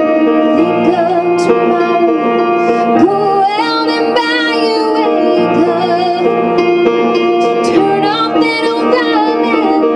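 Music: a singing voice carries a slow melody over sustained instrumental chords.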